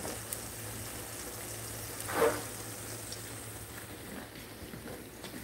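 Onion rings deep-frying in hot Wesson corn oil in a cast-iron skillet: a steady bubbling sizzle. A brief louder sound about two seconds in.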